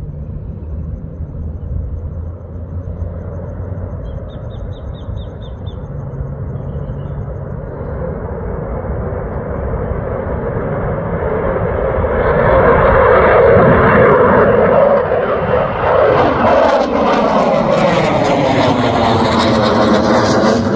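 Fighter jet climbing out after takeoff, its jet engine noise growing steadily louder as it comes closer. From about two-thirds in, the noise is at its loudest and sweeps and phases as the jet passes near overhead, with a crackling edge.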